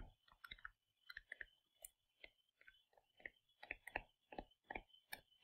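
Faint, irregular taps and clicks of a stylus tip on a tablet screen during handwriting, about three or four a second.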